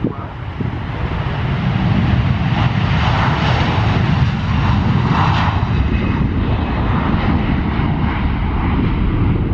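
Jet airliner's engines at take-off power, loud and steady after building up over the first two seconds.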